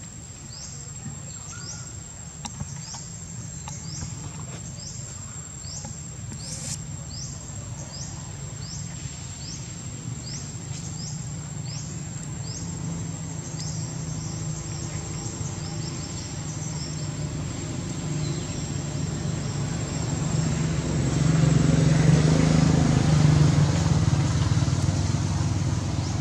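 Forest ambience: a steady high insect whine with a short rising chirp repeated roughly every second, over a low rumble that swells louder about twenty seconds in.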